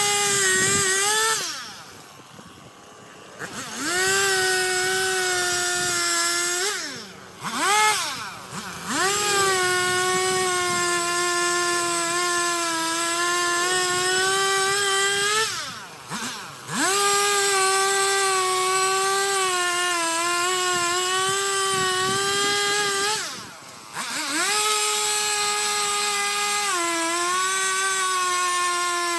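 Stihl two-stroke chainsaw held at full throttle through a series of cuts, dropping back to a quieter idle about four times and revving straight back up. Its high engine note sags a little in pitch while the chain is in the wood.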